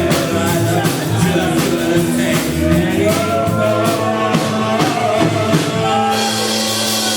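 Live rock band playing: drum kit and guitars under a sung melody, with a long held note coming in about six seconds in.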